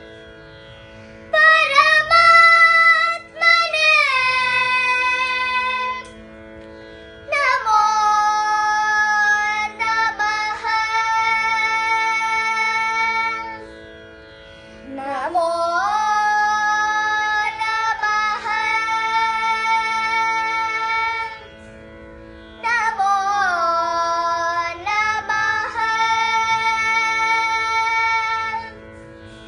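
Two girls singing a devotional prayer together in four long phrases, their pitch sliding up into each one, with short pauses between. A steady drone sounds underneath and carries on through the pauses.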